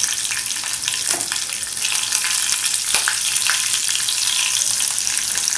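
Mustard seeds, cumin and urad dal tempering in hot oil in a kadai, with green chilies just added: a steady sizzle with scattered crackles and a couple of sharp pops as the mustard seeds splutter.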